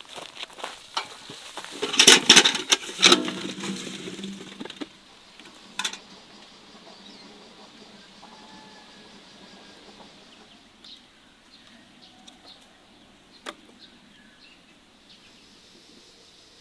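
A flurry of rustling and knocking in the first few seconds, loudest about two to three seconds in, then a quiet outdoor background broken by a few faint ticks and one sharp click.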